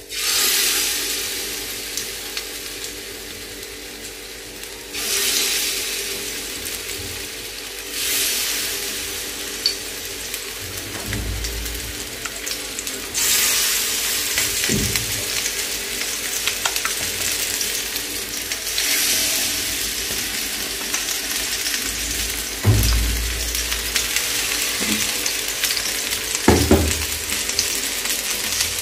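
Masala-coated fish pieces sizzling in hot mustard oil on a flat tawa, the sizzle flaring up each time another piece is laid into the oil, five times in all.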